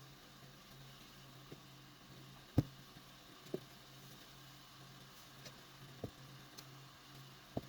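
A few scattered short, soft knocks, the loudest about two and a half seconds in, over a steady low hum.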